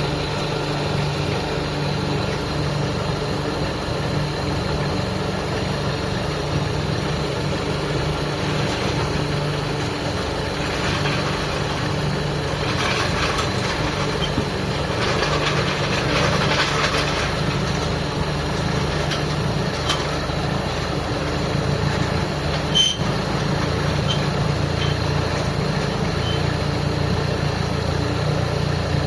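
Carbureted car engine idling while its out-of-tune carburetor is being adjusted; the idle note shifts partway through. A single sharp click sounds about two-thirds of the way in.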